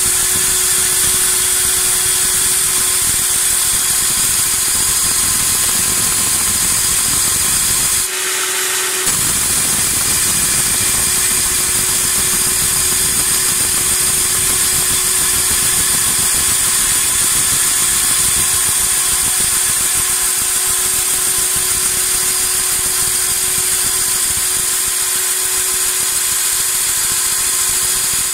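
Belt-type pipe notcher grinding a notch into a round steel pipe: the abrasive belt and its motor run loudly and steadily, a dense grinding hiss over a constant hum. About eight seconds in the sound thins out briefly for about a second, then the grinding carries on.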